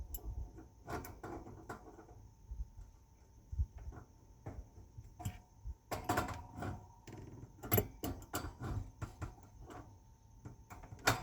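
Adjustable wrench clicking and knocking against a propane hose fitting as the hose connection is tightened, in irregular sharp clinks with pauses between them.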